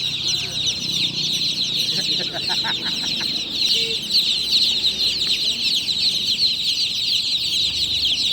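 A crowd of newly hatched chicks chirping loudly and without pause, many short, high, downward-sliding peeps overlapping.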